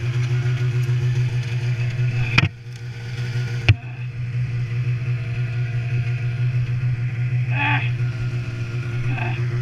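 Snowmobile engine idling steadily. Two sharp knocks come about two and a half and nearly four seconds in.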